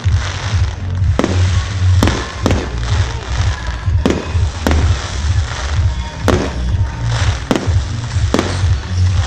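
Fireworks shells bursting in a rapid series of sharp bangs, more than one a second, over loud, bass-heavy music.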